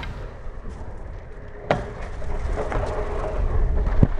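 Skis running over snow with a steady low rumble, and two sharp knocks a little over two seconds apart as the skis strike park features.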